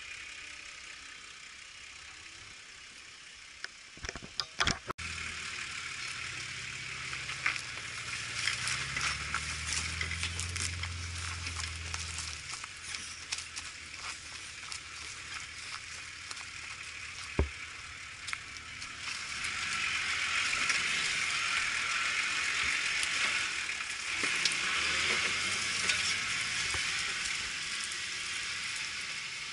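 An off-road vehicle's engine running at low revs under a steady hissing, crackling noise that grows louder past the middle. There are a few sharp knocks about four to five seconds in.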